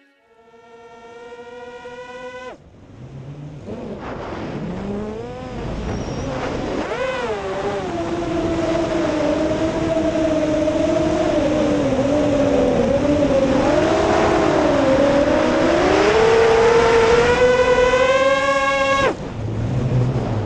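FPV racing quadcopter's brushless motors (T-Motor F40 Pro 2600KV) whining, the pitch swooping up and down with the throttle and climbing higher near the end before cutting off suddenly.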